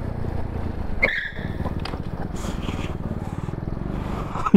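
Mondial SFC 50 cc scooter engine running steadily while being ridden, with a brief high chirp about a second in.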